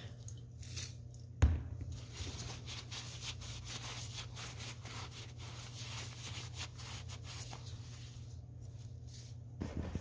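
Wiping and rubbing on the engine's timing cover as oil residue is cleaned off, with one sharp knock about a second and a half in, over a steady low hum.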